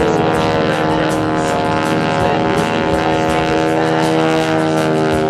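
North American Harvard Mark IV trainer flying overhead, its Pratt & Whitney R-1340 Wasp radial engine and propeller running at power in a steady, loud drone made of many even tones.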